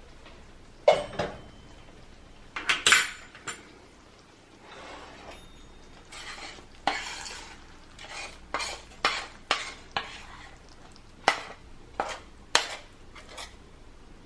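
Metal utensils clinking and scraping against dishes and a pot in a string of sharp, irregular knocks and short scrapes, as pasta is served onto plates.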